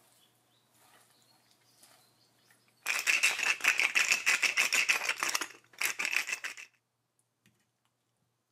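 Shredded daikon being tossed with mayonnaise in a glass bowl: a loud, rapid wet crackling for a few seconds, with a brief break before a last short burst. Before it, a faint rustle of salt being rubbed into shredded daikon by hand.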